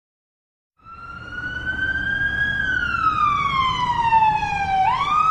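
Police car siren wailing: a single tone that starts abruptly about a second in, rises a little, slides slowly down, then sweeps quickly back up near the end, over a low engine rumble.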